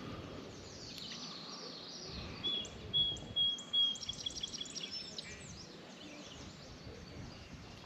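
Birds singing over a steady outdoor background hiss: a high note held and broken into quick repeated notes, with many short downward chirps, about two and a half seconds in and lasting a few seconds. A few low thumps come with the loudest moments.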